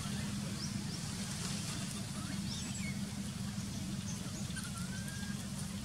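Steady low outdoor rumble with a few faint, thin high chirps and whistles over it.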